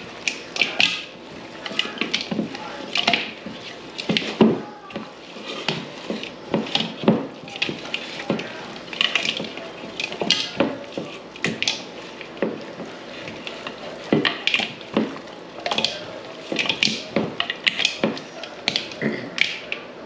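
Hands squishing and smacking raw, seasoned squirrel pieces in a bowl as they mix the dry rub into the meat: an irregular run of short, wet smacks, several a second.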